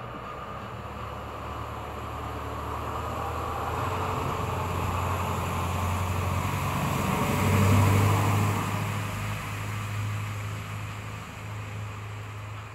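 A motor vehicle passing by: engine and tyre noise over a low hum, building gradually to a peak about eight seconds in and then fading away.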